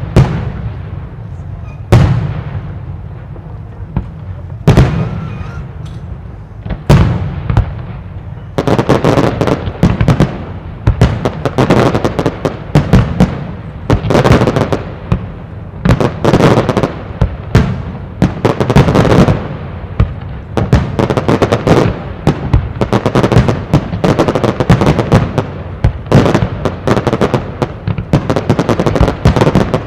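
Aerial firework shells bursting: a few single booms about two seconds apart, then from about eight seconds in a dense run of rapid bursts and crackle.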